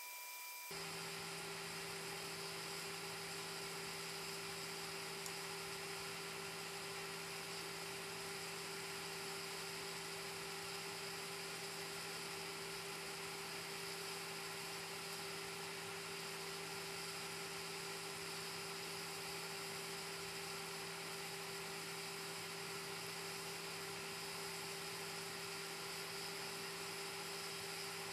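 Ender 3 S1 3D printer's hotend heat-sink fan whirring steadily with a constant hum. It runs because the hotend is hot, near 295 °C. It gets louder about a second in and then holds level.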